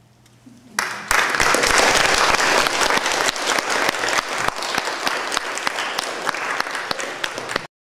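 Audience applauding, starting suddenly about a second in and cutting off abruptly near the end.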